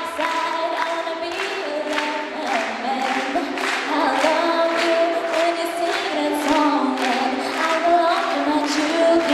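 Voices singing a song, with little or no instrumental backing.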